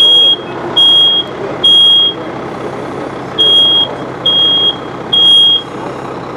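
Smoke alarm sounding its evacuation pattern, set off by smoke from a trash-can fire: high beeps in groups of three, two groups in all, with a pause between them. Under the beeps is a steady rumble from an idling fire truck engine.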